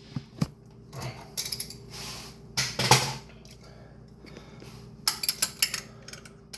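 Metal hand tools clinking and knocking, with a ratchet clicking in quick runs about five seconds in, as a tight, over-torqued spark plug is worked loose.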